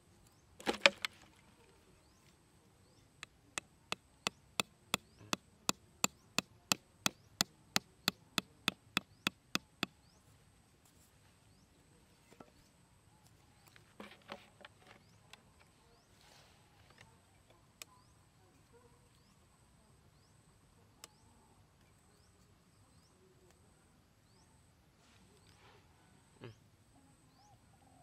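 Small hatchet knocking a wooden peg into sandy ground: a run of about twenty sharp, evenly spaced knocks, roughly three a second, after a louder clatter near the start. A few scattered knocks and handling sounds follow.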